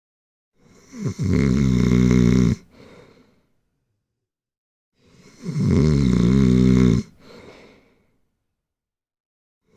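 Loud snoring: two long snores, one about a second in and one about five seconds in, each followed by a softer breath that trails off, with silence between them.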